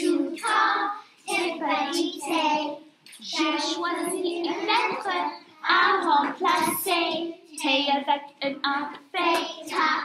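Young children singing in French, a phonics song that chants letter-sound syllables.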